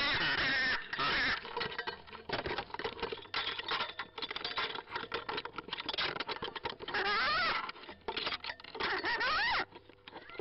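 Hyacinth macaw chewing at the wooden camera box right against the microphone: close, loud, irregular crunching, scraping and clicking of beak on wood, with a couple of short rising calls in the second half.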